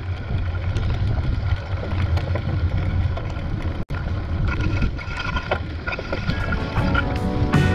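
Wind buffeting an action camera's microphone while cycling through typhoon rain, a steady low rumble with the hiss of tyres on wet road. The sound drops out for an instant at a cut about four seconds in.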